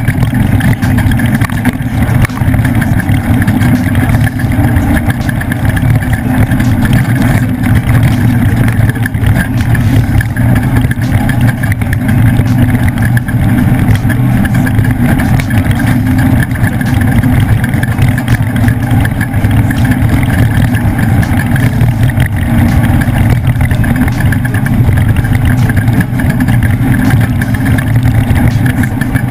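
Leaf-sprung Ford desert race truck driving at race pace, its engine running loud and steady with a constant rough rumble of the truck over the course.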